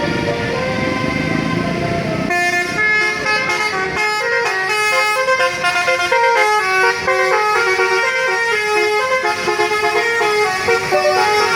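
Indonesian tour bus 'telolet' horn, a multi-tone horn playing a quick melody of stepped notes. It starts about two seconds in, after low rumbling noise.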